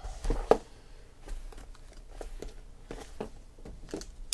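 Cardboard shipping case handled and turned in the hands: scattered light taps, knocks and scrapes of cardboard, several a second.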